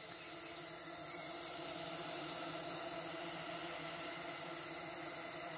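Steady hiss of a colony of canudo stingless bees (Scaptotrigona) inside a bucket bait trap, heard close to its tube entrance.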